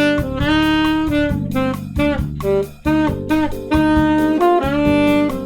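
Saxophone playing held notes and short phrases over a backing track with drums and guitar, sounding the minor sixth over a minor chord, a note with a strong pull to resolve down to the fifth.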